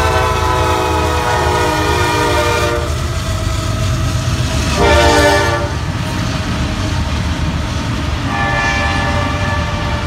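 Kansas City Southern GE ES44AC locomotive's Nathan K5LA five-chime horn sounding over the rumble of the passing train: the end of a long blast, a short blast about five seconds in, and another long blast starting near the end, the pattern of the long-long-short-long grade-crossing signal.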